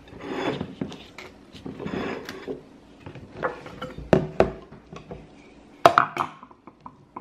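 Tableware and food handling on a wooden counter over a plate of toast: a few rasping scrapes, then clinks and two sharp knocks as a plastic honey squeeze bottle and a knife are picked up and set down.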